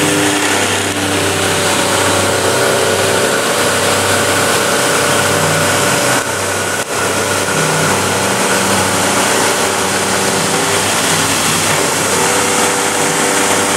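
Milling machine's end mill cutting an aluminium plate: the spindle and cut make a loud, steady machining noise with sustained whining tones, dipping briefly about six seconds in.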